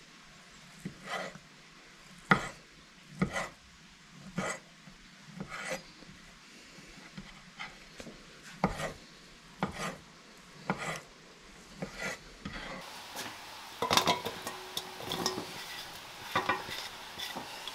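Santoku knife cutting cooked pork knuckle meat into cubes on a wooden cutting board, with a knock of the blade on the board about once a second. About 13 s in this gives way to a busier patch of scraping and clatter as the diced meat is scraped off the board into an enamel bowl.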